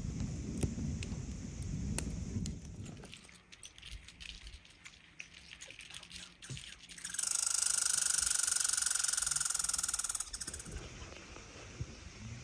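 Wood campfire crackling over a low rumble for the first few seconds. After a quieter stretch with scattered clicks, a red squirrel gives a fast rattling chatter lasting about three seconds, the loudest sound here.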